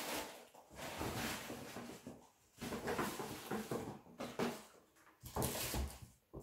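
Packaging being handled: irregular rustling of paper with a few soft knocks.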